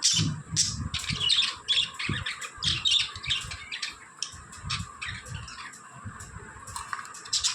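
Budgies (budgerigars) chirping and chattering, a quick run of many short, high calls with occasional squawks.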